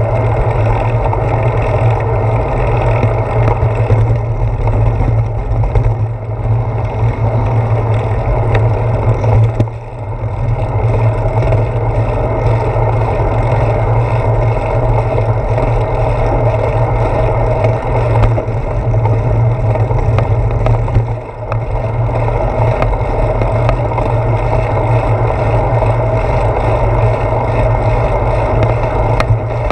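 Wind buffeting the microphone of a handlebar-mounted GoPro on a moving bicycle: a loud, steady low rumble that briefly dips twice.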